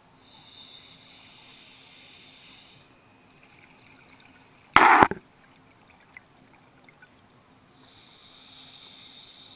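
Scuba diver breathing through a regulator: two long hissing inhalations through the demand valve, a breath cycle apart, with a short, loud burst of exhaled bubbles about halfway between them.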